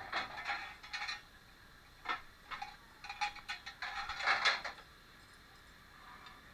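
Light metallic clinks and rattles of zipline harness hardware (carabiners, pulley, lanyard clips) being handled. They come in short, irregular spells, loudest about four seconds in, and die down after about five seconds.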